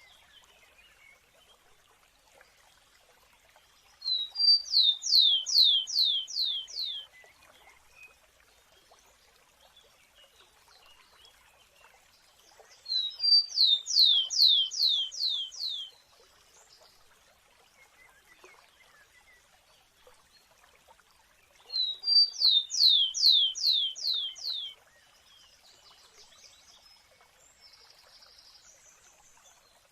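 A sparrow sings the same short song three times, about nine seconds apart. Each song lasts about three seconds: two or three short high notes, then a run of about six quick down-slurred whistles.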